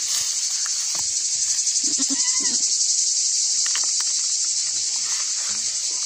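Steady, high-pitched shrilling of summer insects in sunlit scrub, with one brief voice-like call about two seconds in.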